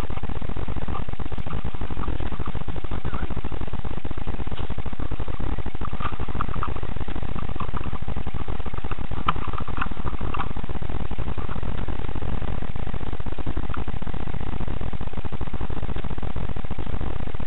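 Steady, loud static hiss from a cheap action camera's microphone, with only faint, brief sounds showing through it.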